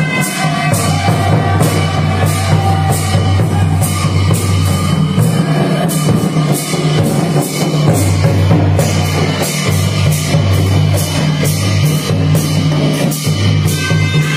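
Himachali folk dance music: a large brass-shelled dhol beaten with a stick in a steady, driving rhythm, with a held wind-instrument melody over it.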